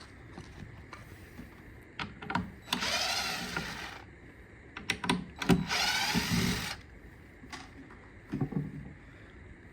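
Cordless drill/driver running in two bursts of about a second each, its motor whine rising and wavering in pitch, backing the latch screws out of their freshly made holes. A few sharp clicks and knocks come before each burst as the bit is set on the screw heads.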